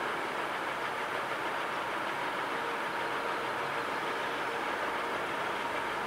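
Steady hum of distant city traffic, with a faint thin whine coming in for a couple of seconds in the middle.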